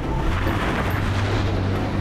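Camper van driving off over loose gravel: steady engine hum under the crunching noise of tyres on stones.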